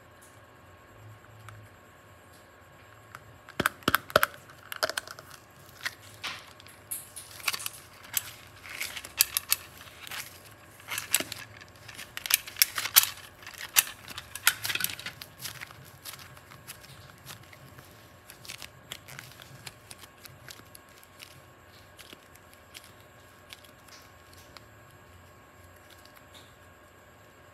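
A stretch of dense crinkling, crackling clicks from something being handled, lasting about twelve seconds and then thinning out to faint occasional ticks.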